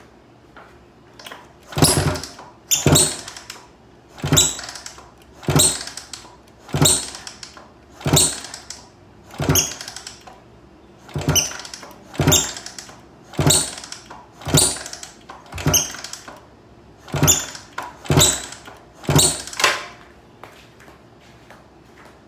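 A squeak from a 1972 Honda CB350 motorcycle being restored, repeating about fifteen times at roughly one a second and then stopping; its cause and location are unknown to the owner.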